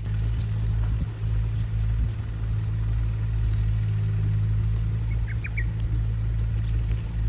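A steady low mechanical hum, like an engine or motor running, holds at the same pitch throughout. A few short high bird chirps come about five seconds in.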